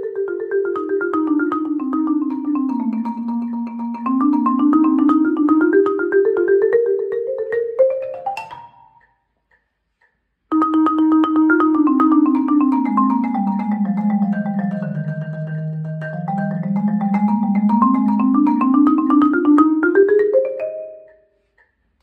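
Marimba played with yarn mallets in fast rolls, running a scale note by note down and back up, then a second, lower run down and back up after a short pause.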